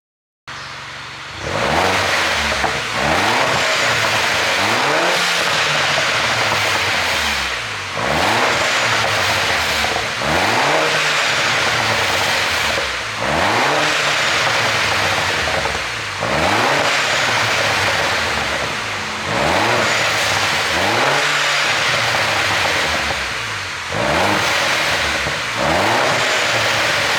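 MINI Cooper S R56's N14 1.6-litre turbocharged four-cylinder engine revved over and over, the pitch climbing and falling back about every two and a half to three seconds, starting about half a second in. Its ECU is tuned to make exhaust pops and crackles when the revs drop.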